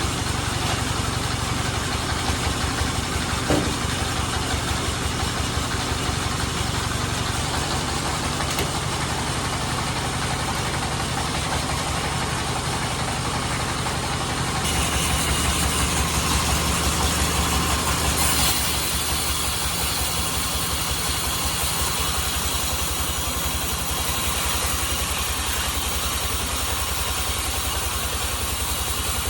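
Band sawmill running steadily with an even, engine-like low drone and pulse. About fifteen seconds in it grows louder and hissier for roughly four seconds, then settles back.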